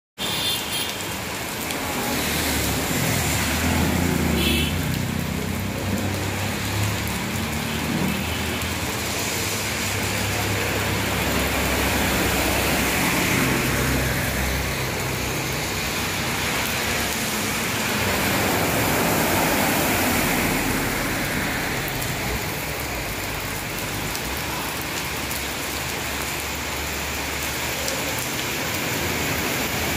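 Heavy monsoon rain pouring steadily onto a flooded road, with a low rumble underneath for the first half or so.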